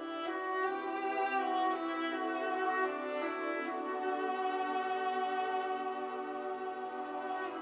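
Classical string music with a violin line leading, from an FM radio broadcast played through a Quad II valve amplifier and heard off its loudspeaker in the room, with little bass.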